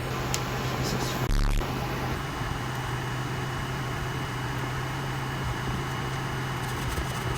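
A steady low hum over an even background noise, with one brief thump about a second and a half in.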